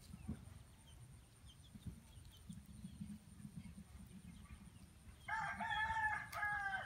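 A rooster crowing once, a single call of about a second and a half near the end, dropping slightly in pitch as it ends.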